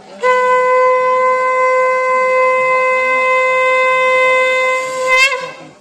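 Conch shell (sangu) blown at a Hindu temple shrine: one long, loud, steady note held for about five seconds, which wavers upward and breaks off near the end.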